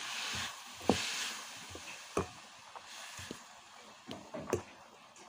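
Chopped radish leaves being stirred in a pan with a wooden spoon: a faint sizzle that fades over the first second or two, and several light knocks of the spoon against the pan.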